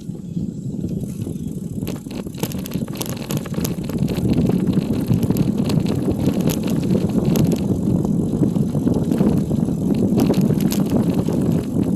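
Bicycle ridden along an unpaved forest road: a steady rumble of tyres on the rough surface, with frequent small rattles and clicks. It gets louder about four seconds in.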